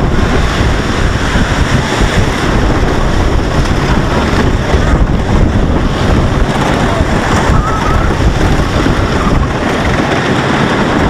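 A wooden roller coaster train running through its circuit at speed. Heavy wind rushes over the rider-worn microphone, and the train keeps up a steady rumbling clatter.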